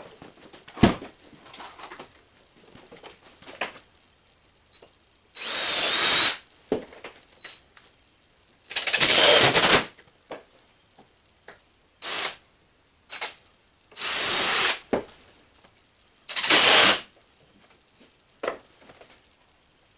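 DeWalt cordless drill driving screws into wood, run in five short bursts of about a second each with a steady motor whine. A few light knocks of wood being handled come between the runs.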